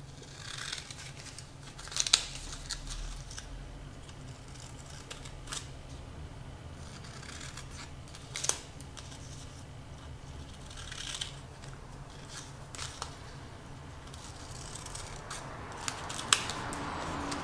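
Small scissors snipping triangles out of the edge of a strip of adhesive wound plaster: about half a dozen separate short snips, several seconds apart.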